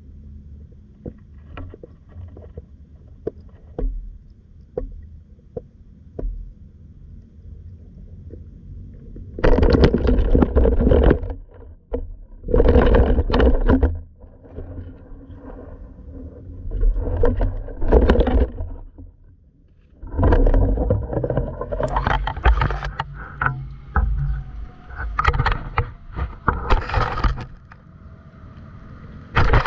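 Low, muffled rumble from a camera under water with a few faint clicks, then from about ten seconds in repeated loud bursts of splashing and scraping as the camera is jostled and moved through the water, with a fish being landed.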